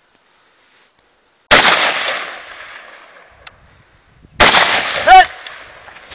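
Two rifle shots about three seconds apart from an AR-style rifle, each trailing off in a long echo. A short, loud pitched sound follows the second shot.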